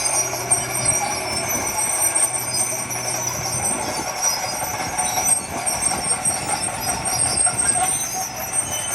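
Crawler bulldozer working, its steel tracks squealing steadily at several high pitches over a continuous mechanical din, with a low engine hum underneath.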